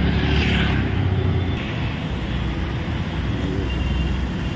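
Road traffic: a steady low rumble of passing vehicles, louder in the first second and a half.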